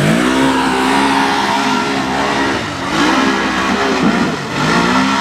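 Polaris RZR 900 side-by-side's twin-cylinder engine revving hard. It climbs quickly at the start and holds, then drops and surges back up twice.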